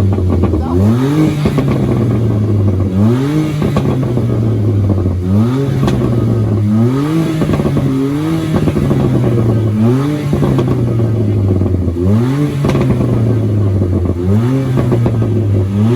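A car engine revved over and over, about seven times. Each time the pitch climbs quickly, holds for a moment at the top, then drops back to idle.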